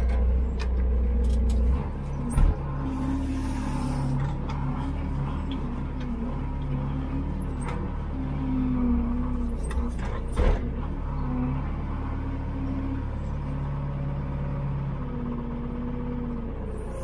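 Telehandler's diesel engine running steadily, with a sharp clunk about two and a half seconds in and another about ten and a half seconds in.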